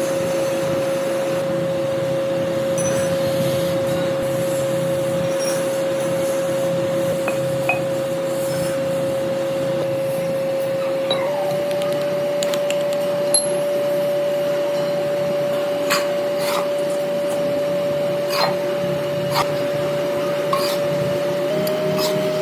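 A motor-driven workshop machine running steadily, with a hum and a steady whine that steps up slightly in pitch about halfway through and again near the end. A few light clicks sound over it.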